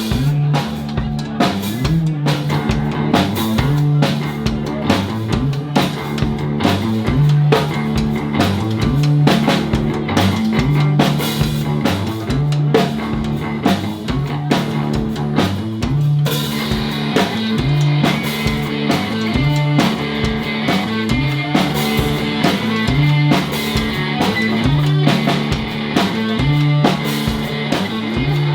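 Live rock band playing an instrumental passage: drum kit and bass guitar in a steady, repeating groove. A brighter, denser layer comes in just past halfway.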